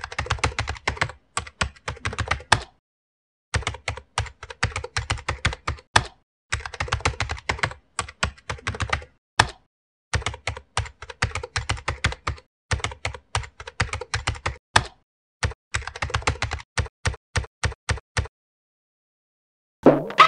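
Keyboard typing: quick runs of keystroke clicks, about six runs with short pauses between them, stopping a couple of seconds before the end.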